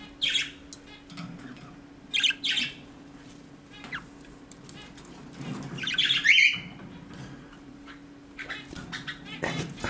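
Budgerigars squawking: short harsh calls near the start and around two seconds in, then a longer, louder squawk around six seconds in, over a faint steady hum.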